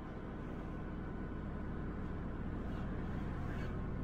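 Car interior noise while driving: engine and road noise heard inside the cabin as a steady low drone.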